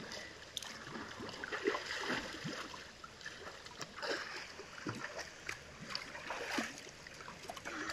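Swimming-pool water splashing and lapping in small, irregular splashes close by, from a child's hand moving in the water at the pool steps and children swimming.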